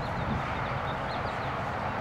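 Steady outdoor background noise, a low rumble with an even hiss, with a few faint high chirps in the first second and a half.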